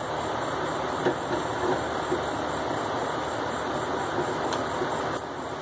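Shop fan running with a steady whoosh, with a few light clicks from the metal steering knuckle being handled.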